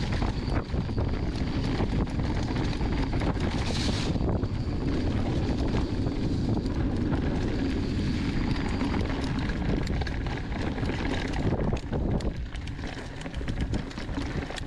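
Downhill mountain bike ride heard from the rider: wind buffeting the microphone and tyres rolling over dirt, with constant rattling clicks from the bike over the rough trail. There is a short hiss about four seconds in, and the noise gets quieter in the last few seconds.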